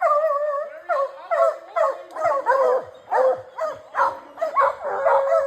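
Hunting hounds baying in a rapid run of barks, about two a second, with one drawn-out howl near the end: the bay of dogs that have a bear caught in a hole.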